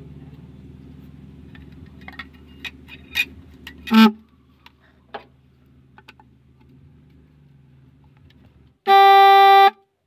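Low steady hum with scattered clicks and taps, and a brief loud burst about four seconds in. Near the end a red snail-type (keong) car horn gives one short, loud, steady blast that cuts off abruptly: the repaired horn sounding again.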